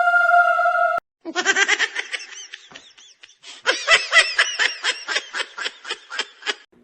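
A person laughing in two long, rapid bouts of ha-ha-ha, used as a comedy laugh sound effect. It is preceded by the end of a held electronic tone that cuts off abruptly about a second in.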